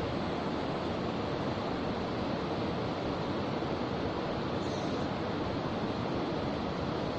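Steady rushing of shallow river water, an even noise with no distinct events.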